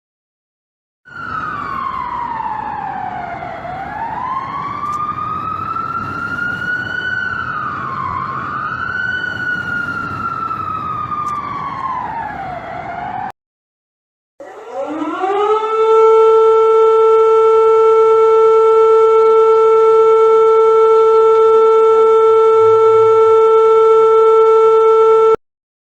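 Civil defense warning siren wailing, its pitch sliding down, back up, dipping once and falling again over about twelve seconds. After a second's break, a second siren winds up and holds one steady tone for about ten seconds, then cuts off suddenly.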